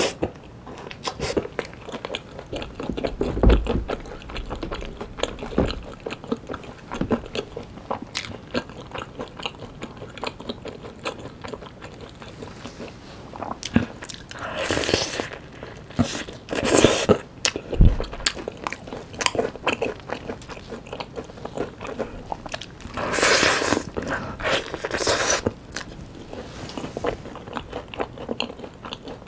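Close-miked biting and chewing of Cheogajip Supreme yangnyeom chicken (sauce-glazed Korean fried chicken), with crunching of the coating and many small crackles. The chewing grows louder in stretches about halfway through and again later on.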